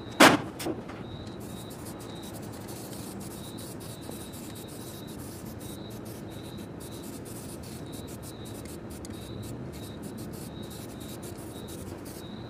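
A sharp knock just after the start, then a steady background hiss with a fainter, flickering high hiss over it.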